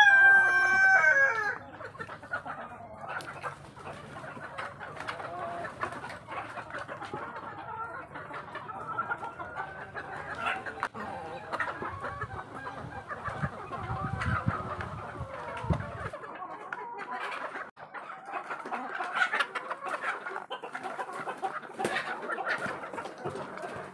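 A rooster crows, its call ending about a second and a half in, then a flock of hens clucks steadily while pecking at mixed feed in a plastic bowl, with many short sharp pecking taps.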